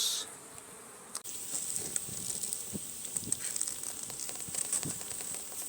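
Honeybees buzzing around an opened hive, starting about a second in, with individual bees briefly flying close past.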